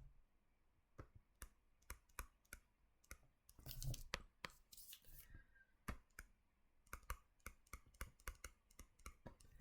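Near silence broken by faint, irregular clicks, one to three a second, with a short louder cluster of clicks and scuffing about four seconds in.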